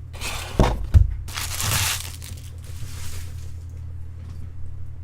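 Wrappers from the opened card packs crinkling and rustling in three bursts, with two sharp knocks in the first second.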